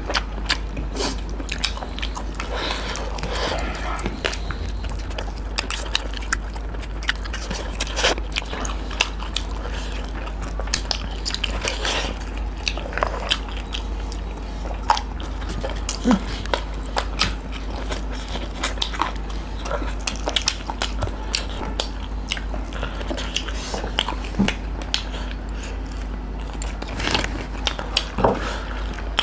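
Close-miked eating: steady chewing and biting with many irregular wet smacks and crunchy clicks, over a steady low hum.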